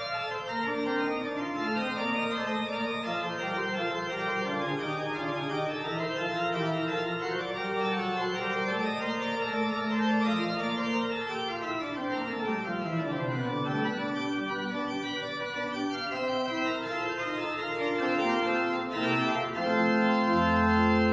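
Church pipe organ playing a recorded piece back by itself through its digital relay's playback system, the pipes sounding with no organist at the keys. Several notes sound together throughout, a line falls through the lower notes around the middle, and a loud low chord comes near the end.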